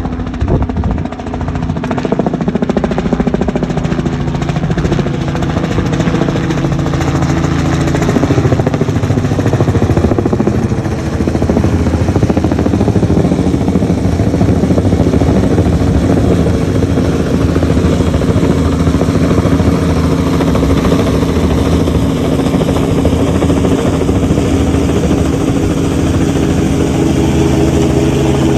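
Helicopter running steadily and loudly close by, its rotor chopping in a fast, even pulse over the engine's hum.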